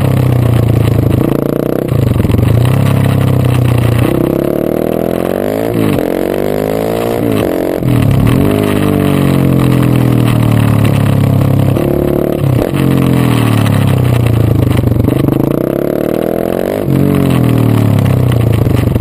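KTM 690 SMC supermoto's single-cylinder engine under hard acceleration and braking: the pitch climbs through the gears, then drops away as the throttle shuts off for the corners, every few seconds.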